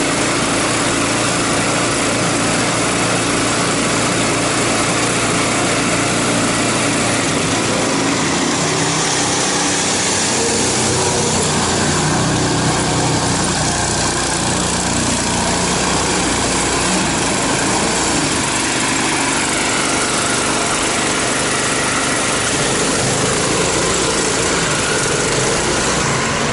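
Small engine of an all-terrain vehicle running steadily as it works through deep snow, its pitch shifting up and down a little.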